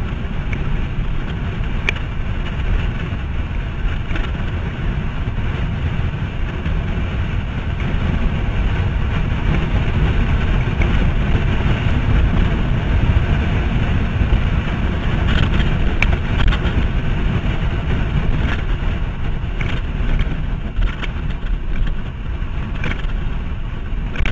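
Wind rushing and buffeting on the microphone of a handlebar camera on a road bike descending fast. It grows a little louder about eight seconds in.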